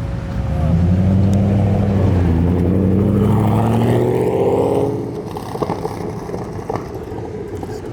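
A car's engine accelerating away: it comes in loud about half a second in, rises in pitch, then drops away sharply about five seconds in.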